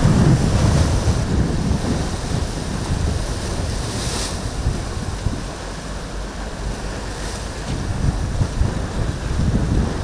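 Wind buffeting the microphone in gusts over the steady rush of choppy surf, with a short louder hiss of breaking water about four seconds in.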